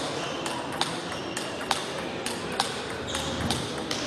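Table tennis ball struck back and forth in a rally, sharp clicks of ball on bat and table coming about three times a second.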